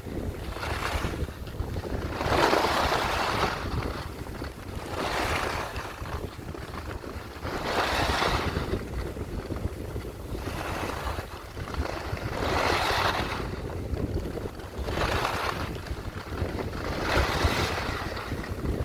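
Skis turning through fresh powder snow: a rhythmic swish every two to three seconds, one per turn, over a steady low rumble of wind on the microphone.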